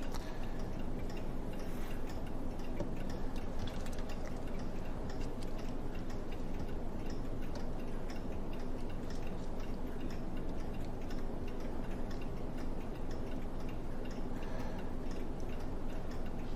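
A mechanical clock ticking steadily, over a low steady hum.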